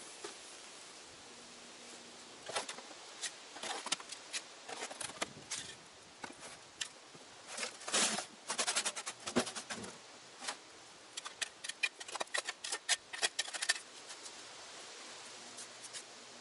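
Soil and stones tipped out of a wheelbarrow, clods and rocks clattering onto the ground in a rapid run of knocks that is heaviest about eight seconds in.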